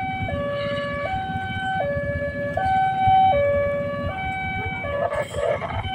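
Railway level-crossing warning alarm sounding: an electronic two-tone signal alternating steadily between a higher and a lower tone, each held about three-quarters of a second. It is the signal that a train is approaching and the crossing barrier is down.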